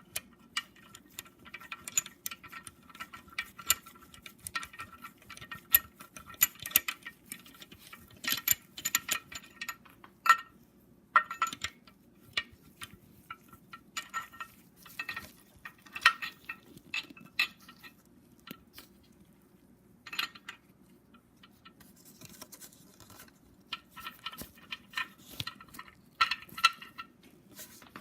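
Small metallic clicks and clinks of a socket tool and steel bolt being worked inside the engine's timing-chain area, in irregular clusters with quick runs of ticks, as the bolt is threaded into the back plate.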